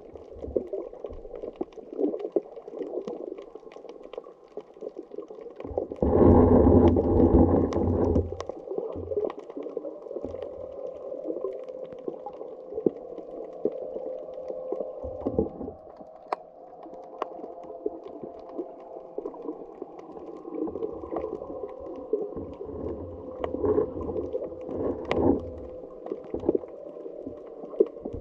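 Muffled underwater sound heard through a camera housing: a steady hum with scattered faint clicks, and a loud rush of noise about six seconds in that lasts about two seconds.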